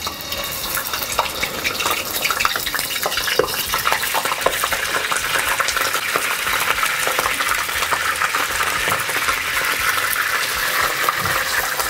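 Whole barramundi frying in hot oil in a wok: steady sizzling with a dense crackle of small pops.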